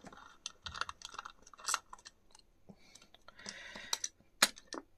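Light, irregular metal clicks and taps as a small screwdriver and fingers work at the head actuator arm inside an opened 3.5-inch hard drive, with two sharper clicks near the end.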